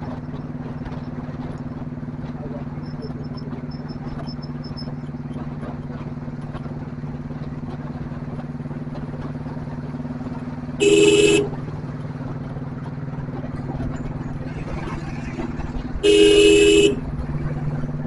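Royal Enfield Bullet single-cylinder motorcycle engine running steadily at highway cruise, with wind and road noise. A vehicle horn beeps twice, once briefly about eleven seconds in and again a little longer near sixteen seconds.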